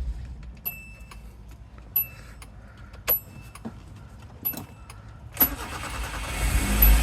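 A 1989 Nissan Sentra's engine, just switched off, is followed by a few sharp clicks. Near the end the starter cranks and the engine catches and runs again.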